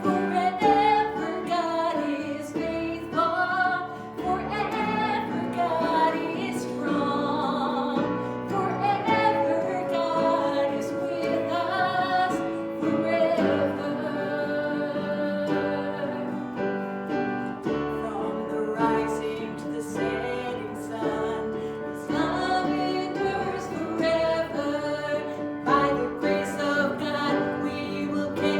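Congregational worship music: singing with a female voice over instrumental accompaniment, continuous throughout.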